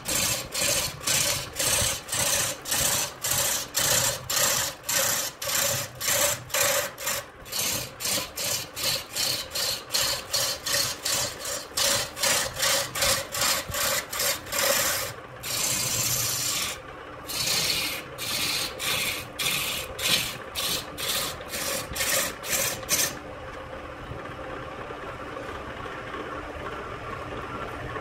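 Gouge cutting a stack of wooden discs spinning on a wood lathe, a scraping rasp that pulses in quick strokes, about two or three a second, with one longer unbroken cut about halfway. Near the end the cutting stops, leaving only the lathe running with a quieter steady hum.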